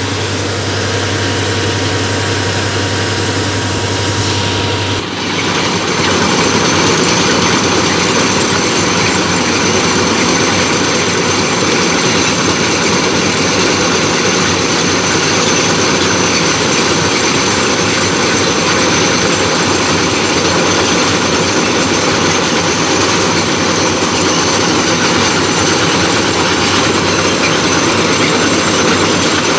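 Heavy railway track maintenance machine running loudly, its engine and working gear making a dense mechanical noise. About five seconds in, a steady low hum drops out and the noise turns louder and harsher.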